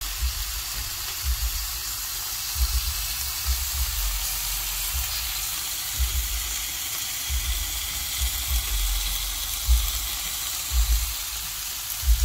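Oyster-mushroom and meatball satay skewers sizzling on a hot electric grill plate: a steady high hiss, with irregular low thumps underneath.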